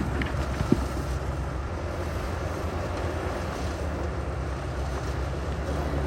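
Heavy construction machinery's diesel engine running steadily, with a single short sharp knock a little under a second in.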